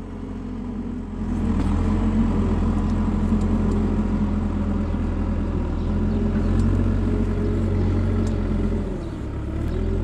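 Diesel engine of a heavy landfill compactor running steadily. It grows louder about a second in and eases off slightly near the end.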